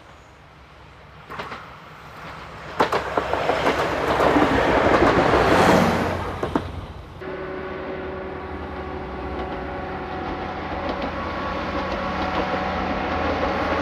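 Inspection train passing close by on the rails: its running noise builds over a few seconds, peaks about five to six seconds in, and falls away. Then a steady engine drone with wheel clatter that slowly grows louder.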